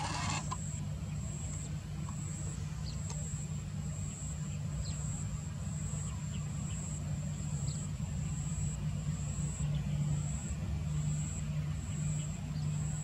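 Steady low propeller drone of an ATR 72 turboprop airliner on approach, heard from a distance, growing a little stronger over the last few seconds. Above it runs a high whine that pulses on and off, with a few faint chirps.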